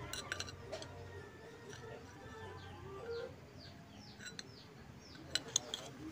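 Thin steel strips clicking against each other as they are handled, a few sharp clinks at the start and two louder ones near the end. Between them a bird chirps over and over in short falling calls.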